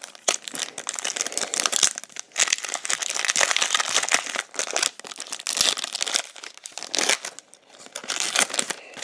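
Plastic wrapper of a 2022 Donruss football card pack crinkling in the hands and tearing as it is pulled open, a dense run of crackles and rips.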